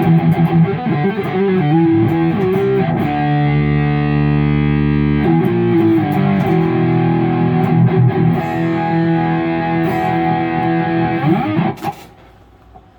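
Kiesel Crescent electric guitar with Kiesel Polarity active pickups playing distorted rhythm chords through a Mesa Mark IV amp profile. A chord is held and left ringing about three seconds in, and the playing stops near the end.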